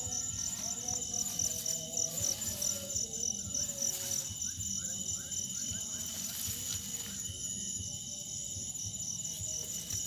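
Crickets chirping steadily in the grass, an even, rapid pulse several times a second, with a few faint short rising chirps about halfway through.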